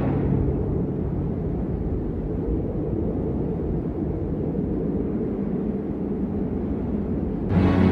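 Low, steady rumbling drone in an ambient soundtrack, a dark noise without clear notes. The fuller music with sustained tones comes back in just before the end.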